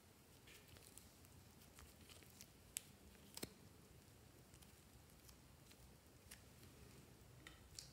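Faint sticky clicks and small pops of fluffy slime being stretched, folded and pressed between the fingers: about a dozen scattered crackles, the loudest two near the middle, over near silence.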